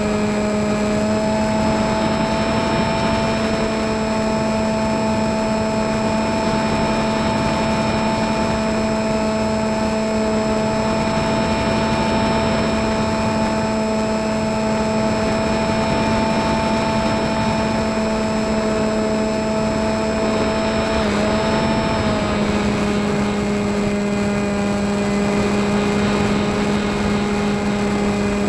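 Model airplane's motor and propeller running at a steady cruise throttle, a constant whine over wind rush, heard from the plane's onboard camera. About three quarters of the way through, the pitch dips briefly and comes back up.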